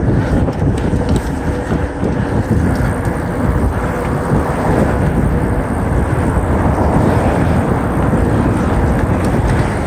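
Wind rushing over the microphone and mountain-bike tyres rumbling on a dirt trail during a fast downhill run. The noise is loud and steady throughout.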